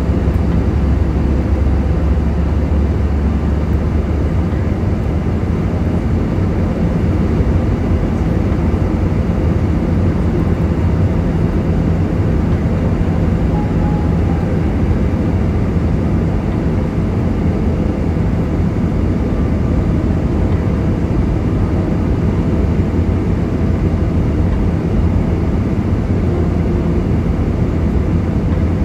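Steady roar of an Airbus A320-family airliner's jet engines and rushing air, heard inside the cabin over the wing during the climb after takeoff.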